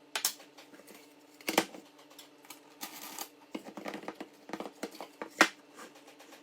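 Irregular clicks and knocks, the loudest two about a second and a half and five seconds in, with a short scraping rush about three seconds in, over a faint steady low hum.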